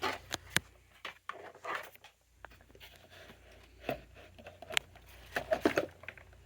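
Irregular handling noises: light clicks, knocks and rustling scrapes as a small electric fan is moved and set in place, over a faint steady low hum.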